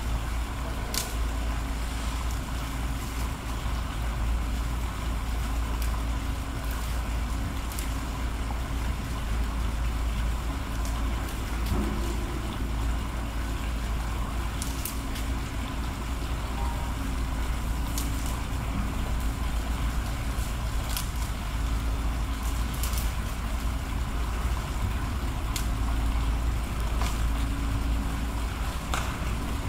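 Steady outdoor background noise: a deep low rumble under an even hiss, with a faint on-and-off hum and a few short sharp clicks scattered through.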